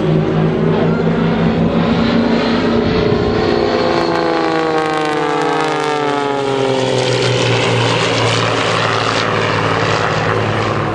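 Aerobatic display plane's piston engine and propeller running at power, its engine note sliding down in pitch in the middle as the aircraft sweeps past.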